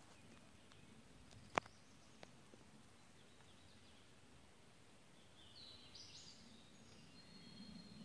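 Faint songbirds singing in a quiet forest, with high chirps and a thin held whistle in the second half. A single sharp click about a second and a half in.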